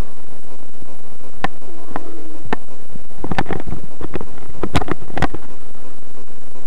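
Footsteps walking across grass, heard as a run of sharp knocks about two a second over a steady hiss.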